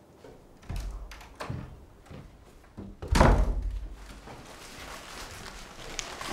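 A door shut with a heavy thud about three seconds in, after a few lighter knocks and bumps.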